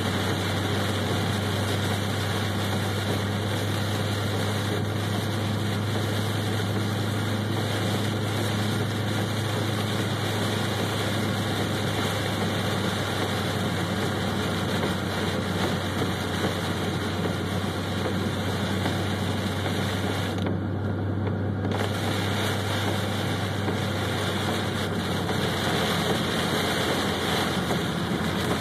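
Inside a Pontiac GTO driving through torrential squall-line rain: a steady, loud wash of rain and tyre spray over a low engine hum. The hiss briefly drops away for about a second near the two-thirds mark.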